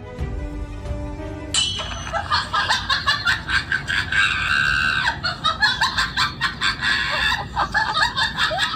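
Background music that cuts off suddenly about a second and a half in. A loud, rapidly pulsing comedic cackling sound effect, laid over the prank, takes its place and runs on.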